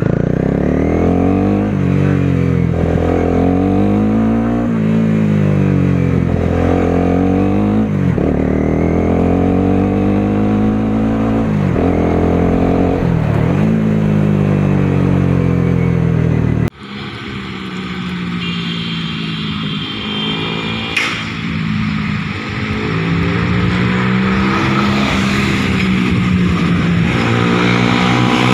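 Honda CBR 250R single-cylinder engine revved again and again through an Akrapovic exhaust with its dB killer removed, each rev rising and falling back. About two-thirds of the way in the sound cuts off abruptly, then the engine runs at lower, steadier revs.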